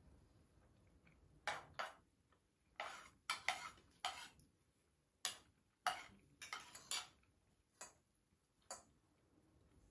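Cutlery clinking against dishes: about a dozen short, sharp clinks at uneven intervals, starting about a second and a half in and stopping near the end.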